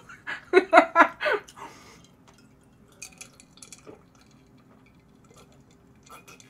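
A woman laughs for about a second and a half, then drinks from a glass with faint gulps and swallows.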